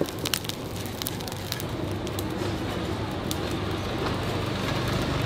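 Burning charcoal in a box grill crackling, with irregular sharp pops and ticks over a low steady rumble.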